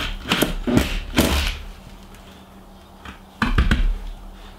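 Cordless screwdriver driving a Phillips screw into a diamond-plate trailer floor panel, with a few sharp knocks and clatters in the first second and a half and a louder thump about three and a half seconds in. The screw goes in and holds without stripping.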